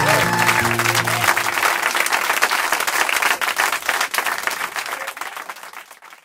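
The last notes of a live song end about a second in, followed by audience applause with a few cheers and whistles, fading out near the end.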